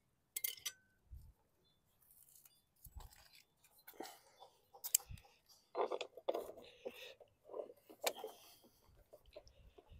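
Irregular metallic clicks, clinks and knocks of a socket wrench working the hub nut of a lawn mower's plastic rear wheel while the wheel is handled, with a few louder knocks in the middle and near the end.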